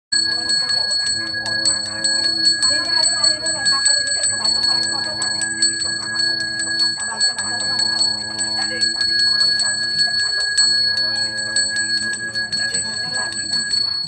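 Balinese priest's brass hand bell (genta) shaken without pause in rapid, even strokes, giving a steady high ringing. Beneath it a man chants mantras in long held phrases of two to three seconds each.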